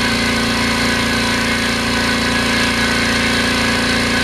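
GMC Syclone 6310 ultra-quiet oil-free air compressor running steadily as it fills its tank, close to its cut-off pressure: an even motor hum with hissing noise on top.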